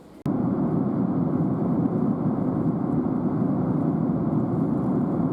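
Steady, loud vehicle or engine noise with no clear rhythm, cutting in abruptly a moment in.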